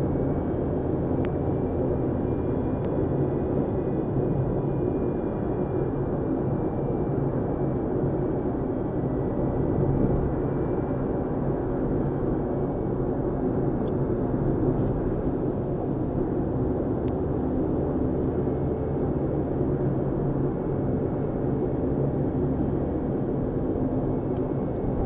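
Inside a 2006 Suzuki Swift at 60–90 km/h: a steady droning roar that sounds like an aircraft taking off. It is the abnormal noise the car makes at these speeds.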